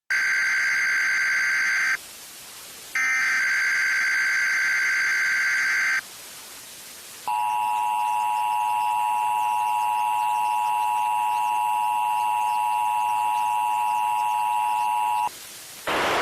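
Emergency Alert System test tones: two bursts of the screeching digital header data, then the steady two-tone EAS attention signal for about eight seconds, then a burst of hiss near the end.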